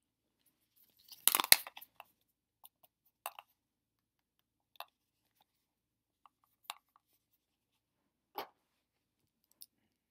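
Handling noise from a plastic teeth-whitening mouthpiece and its LED light unit. A crackly burst of clicks comes about a second and a half in, then single clicks and taps every second or two.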